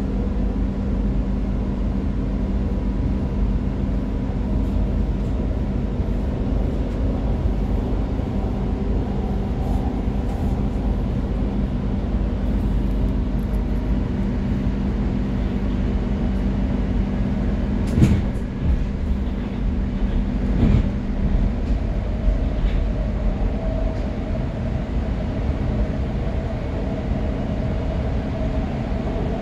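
Doha Metro electric train running at speed, heard from inside the front car: a steady rumble with a constant low hum, and two short knocks a few seconds apart past the middle.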